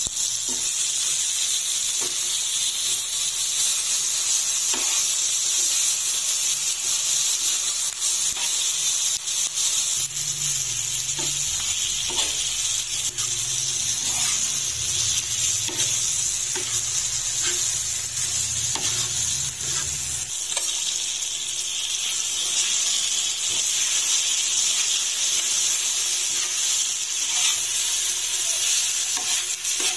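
Eggplant, onion, tomato and green chillies sizzling in oil on a flat iron tawa, with a steady hiss, while a knife blade stirs and scrapes the mix across the griddle in scattered clicks of metal on iron. A low hum joins for about ten seconds midway.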